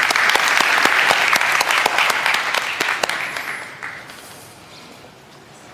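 Audience applauding, the clapping loud at first and dying away about four seconds in.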